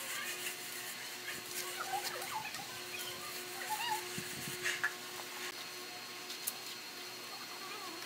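Steel trowel scraping and tapping on wet sand-and-cement mortar, giving scattered light clicks. Under it runs a faint steady hum, with a few brief high chirps in the background.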